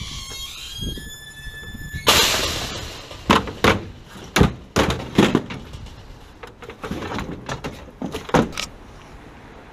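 A metal squeal with a held tone for about two seconds, then a loud scraping rush and a string of sharp clanks and knocks as a metal ladder is pulled off a work truck and handled.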